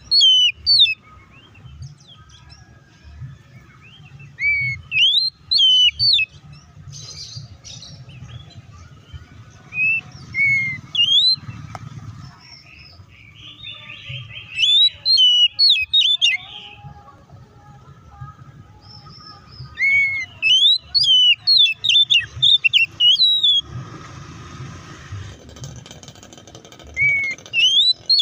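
Oriental magpie-robin (kacer) singing its loud, excited 'ngeplong tarung' fighting song: phrases of sharp, swooping whistled notes come in bursts every few seconds, with short pauses between.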